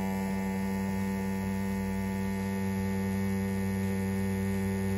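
CNC P6 rotary tattoo pen machine running at a steady, even hum, set to a 3.8 mm stroke.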